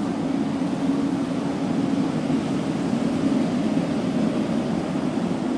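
Steady low rumble of an underground subway station platform, even and unchanging throughout.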